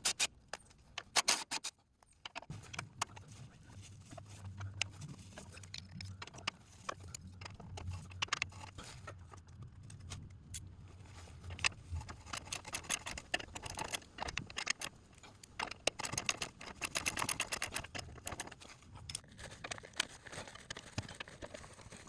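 Hand ratchet on stacked socket extensions clicking as stabilizer-bar bushing bracket bolts are worked loose, with metal tools and extensions clinking. The clicking comes in quick runs and grows busiest in the second half.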